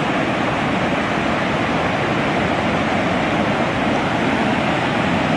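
Steady rushing of a river in flood, running high and choppy.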